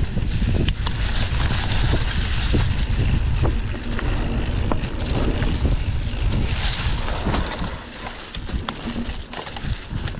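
Wind buffeting a camera microphone while riding a bicycle: a heavy, steady rumble with scattered sharp clicks and rattles. It eases a little about eight seconds in.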